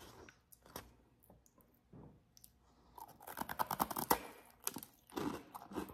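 Crunching of a freeze-dried caramel apple lollipop as it is bitten, a fast run of crisp crackles starting about halfway through, after a few light clicks.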